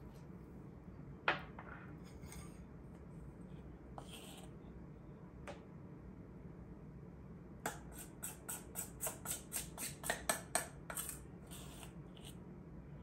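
A spoon scraping and tapping against a stainless steel mixing bowl while batter is scooped out: a quick run of clinks, about four or five a second, for some three seconds in the second half. Before it there is a single sharp clack about a second in, and a few light clinks.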